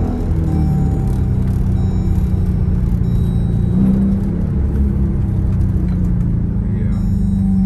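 Dodge Durango R/T's 5.7-litre V8 engine running, a steady low rumble that swells briefly about four seconds in and again near the end.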